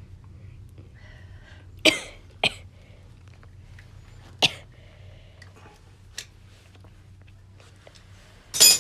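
A few sharp separate clicks of small hand tools and metal parts as a ferrule is fitted to the end of a bicycle brake cable, over a steady low hum. A louder short burst comes near the end.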